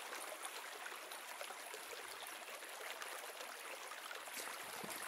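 Small mountain creek running over rocks: a faint, steady rush of flowing water.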